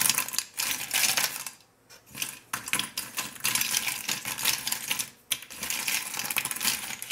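Aluminium Nespresso coffee capsules clicking and clattering against each other as a hand rummages through a dish of them looking for one, with a short pause about two seconds in.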